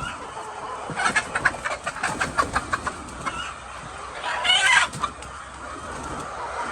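Chickens clucking in a run of short, quick calls, followed by one louder, longer call about four and a half seconds in.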